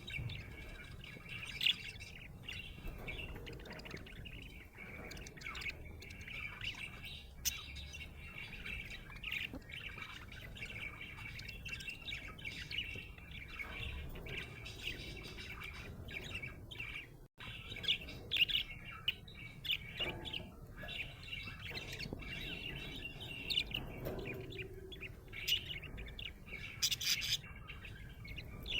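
Budgerigar chirping and warbling continuously, with sharper, louder calls now and then. There is a momentary break in the sound just past the middle.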